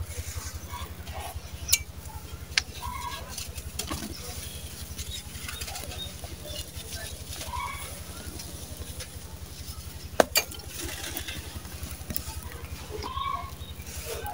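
Dry sand-cement lumps crushed and crumbling in bare hands, gritty sand pouring between the fingers, with a few sharp cracks, the loudest about ten seconds in. A steady low hum runs underneath.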